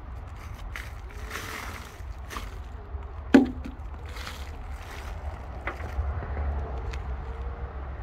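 Hands rummaging through loose compost and the plastic bag lining of a wheelbarrow, with scattered soft rustles and scrapes. A single sharp knock about three and a half seconds in is the loudest sound, over a steady low rumble.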